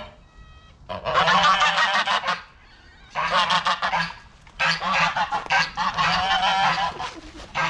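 A flock of domestic geese honking and cackling loudly in three bouts, the calls overlapping, with short pauses between the bouts.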